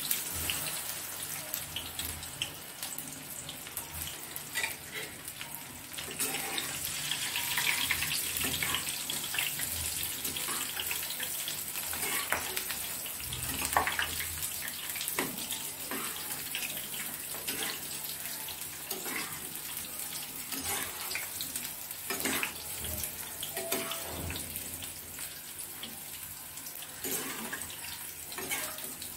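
Cornflour-coated soya chunks deep-frying in hot oil in a kadhai: a steady crackling sizzle dotted with many small pops.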